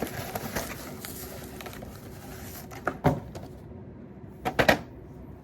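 Rustling of a package being handled and unwrapped by hand, with scattered light clicks, a sharp clack about three seconds in and a louder pair of clacks near the end.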